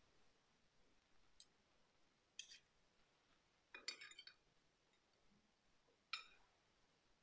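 Faint clinks of a stainless serving spoon and fork against a porcelain bowl and a stemmed cocktail glass as marinated asparagus pieces are served out. There are four light clinks several seconds apart, and the loudest is a short cluster about four seconds in.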